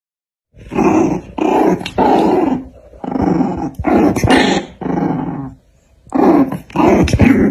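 Puppies growling as they play-fight: a run of short, rough growls, a brief pause about six seconds in, then two more growls.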